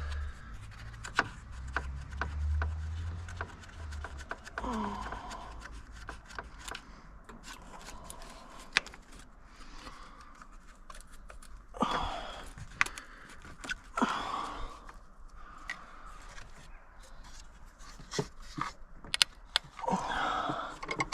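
Hand work in a car's engine bay: scattered clicks, taps and scrapes of plastic clips and trim being pried and pulled loose, in irregular bursts.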